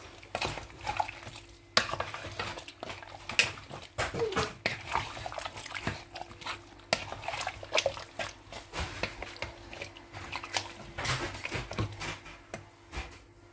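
Wooden spoon stirring and turning raw seasoned chicken pieces in a nonstick pot, with irregular scrapes and knocks against the pot and the wet squelch of the meat. A faint steady hum runs underneath.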